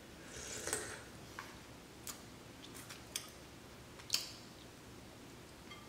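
Faint mouth sounds of someone sipping and swallowing a creamy liquid straight from a metal measuring cup, with a few light clicks and ticks scattered through, one a little louder about four seconds in.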